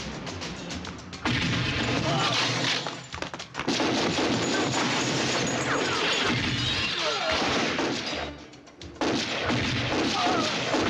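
Film gunfight sound: rapid, dense pistol and shotgun fire with crashing impacts. It comes in heavy bursts starting about a second in, with short lulls at about three and a half and eight and a half seconds.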